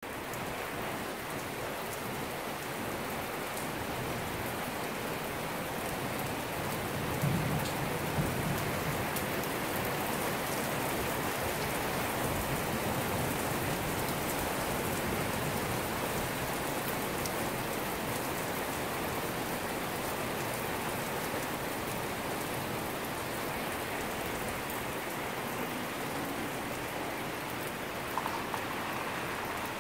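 Heavy rain pouring steadily onto a paved street and parked cars. A brief low rumble swells up about seven seconds in.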